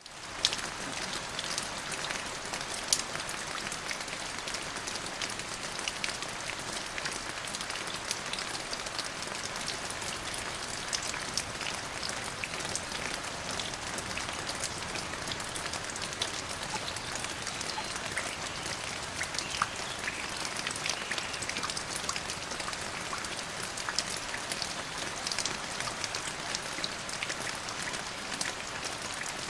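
Steady rainfall: an even hiss of rain with many distinct drops ticking on a hard surface.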